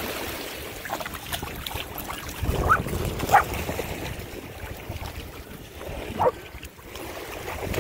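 Dogs wading and splashing in shallow seawater, with three short dog yips about two and a half, three and a half and six seconds in.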